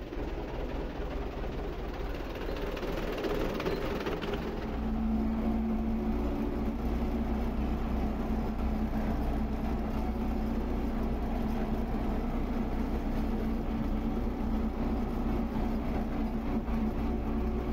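Belarus tractor's diesel engine running while the tractor drives along a road, heard from the driver's seat in the cab. About five seconds in it gets louder and settles into a steady drone.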